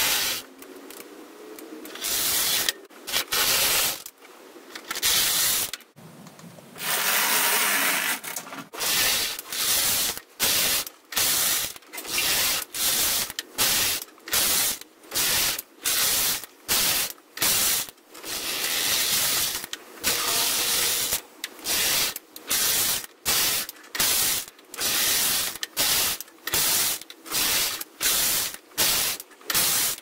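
Brother Profile 585 knitting machine carriage, coupled to a KR580 ribber carriage, pushed back and forth across both needle beds knitting 1x1 rib, with a rasping slide on each row. The first few passes are slower and further apart, then they come quickly, about one a second.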